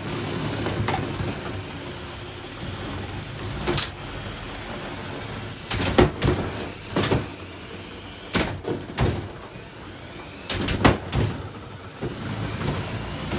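Two Lego combat robots fighting: motors whirring steadily under several clusters of sharp plastic knocks and clatters as the robots collide.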